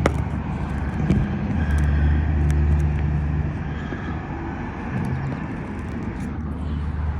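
Motor vehicle engine running close by, a low steady hum that swells for a couple of seconds after the first second and then eases off, with a few faint light clicks.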